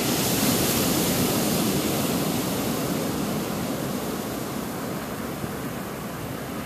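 Ocean surf: a wave breaking and washing up the beach as a broad rushing noise that swells just as it begins, is loudest about half a second in, then slowly dies away.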